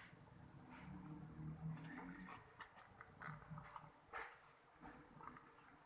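Faint handling of cardboard packaging and paper inserts: scattered light clicks and rustles, with a faint low whine in the background from about one to three and a half seconds in.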